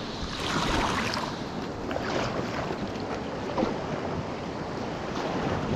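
River water rushing and splashing around an open canoe, with wind on the microphone.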